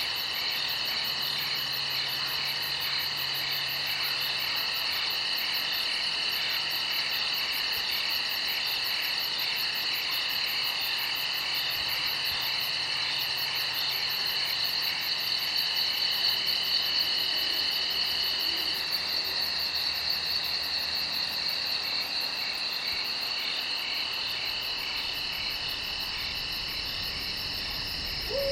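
A night chorus of crickets trilling steadily, several overlapping trills at different pitches. One of the trills stops for a few seconds about two-thirds of the way through, then resumes.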